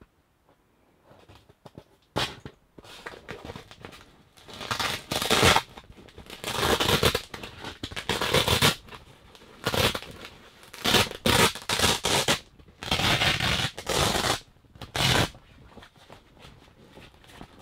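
Bell tent canvas handled from outside as the round stove-jack cover is worked open: a run of irregular, loud rustling bursts, starting about two seconds in and stopping shortly before the end.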